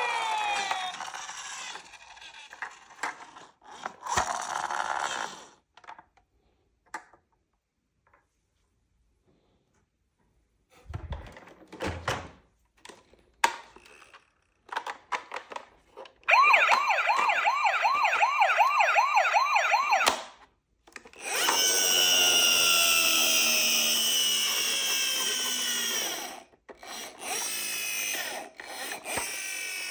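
Toy emergency vehicles' electronic sirens: a fast warbling yelp for a few seconds past the middle, then a second siren with falling tones. Before them, mostly quiet with scattered clicks and knocks.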